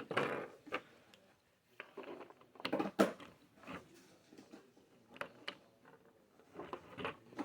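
Plastic Lego pieces being handled and fitted together: a scattering of small, sharp clicks with brief rustling.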